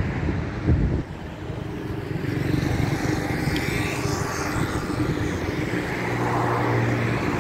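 Street traffic: motor vehicles running and passing, with a low bump about a second in and a steady engine hum near the end.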